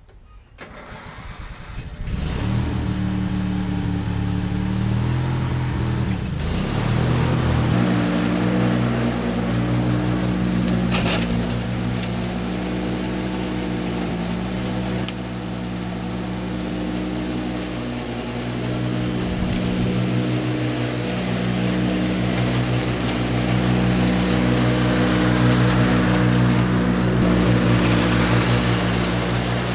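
Ride-on lawn mower engine running at a steady speed while mowing. It gets much louder about two seconds in, a higher rushing sound joins about eight seconds in, and it is loudest near the end as the mower passes close.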